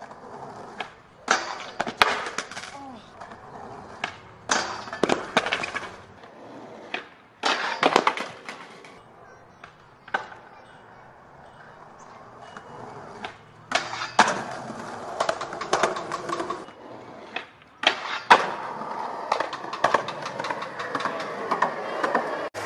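Skateboard on concrete: wheels rolling, with repeated sharp clacks of the board popping, landing and hitting the ground over several attempts. Longer stretches of rolling and scraping noise come in the second half.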